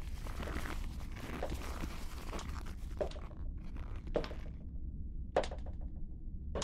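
Slow footsteps of leather dress shoes on a hard floor: three separate knocks about a second apart in the second half, after a stretch of rustling and scuffling. A low steady hum runs underneath.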